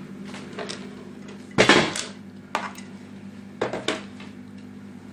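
Hard parts clattering and clinking as they are handled and set down, in several separate knocks, the loudest a short clatter about a second and a half in, over a steady low hum.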